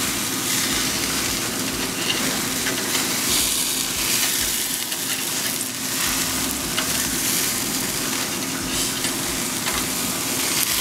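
Beef burger patties sizzling steadily on a charcoal grill grate as their juices cook out, with small pops here and there.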